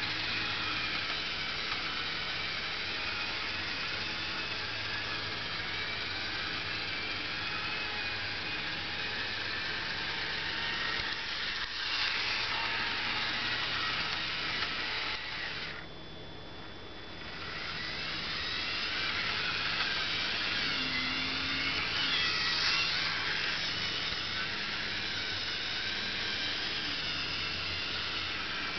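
Bachmann HO scale diesel locomotive's small electric motor and gears whirring steadily as it runs around a loop of track, at the slow top speed the owner says it cannot exceed. The whir dips for about two seconds a little past halfway, then picks back up.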